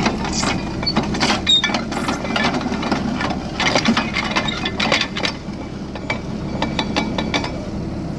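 An engine running with a steady low rumble, overlaid by frequent irregular metal clanks and rattles.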